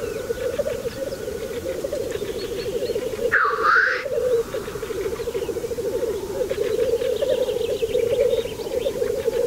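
Black grouse males lekking: a continuous low bubbling chorus of rookooing. About three and a half seconds in, one loud hissing 'sneeze' call cuts through.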